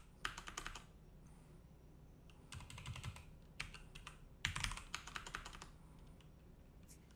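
Computer keyboard typing faintly, in three short bursts of keystrokes separated by pauses.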